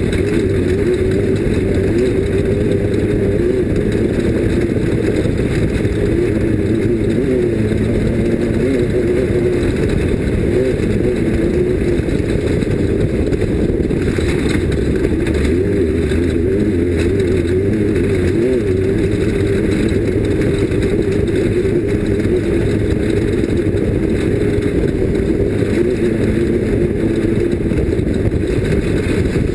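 Off-road race vehicle's engine running steadily and loudly, its pitch wavering slightly up and down.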